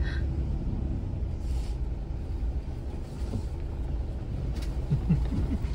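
Vehicle driving, heard from inside the cabin: a steady low rumble of engine and tyres, with a brief pitched sound near the end.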